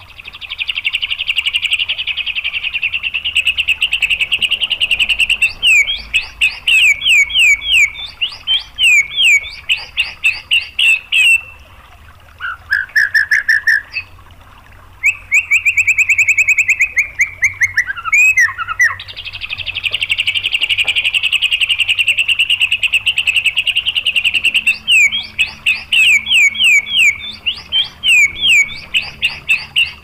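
White-rumped shama (murai batu) song: long rapid trills ('tembakan') alternating with runs of sharp down-slurred whistled notes at about two a second. The same sequence of phrases comes round again about halfway through.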